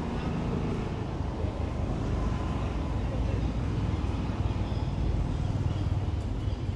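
Steady low rumble of outdoor background noise, without distinct knocks or rhythm.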